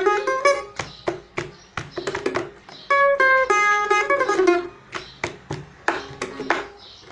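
Homemade mandolin being played with a pick. A short run of clear picked notes comes in the middle. Before and after it are quieter stretches of sharp, muted strokes with little pitch.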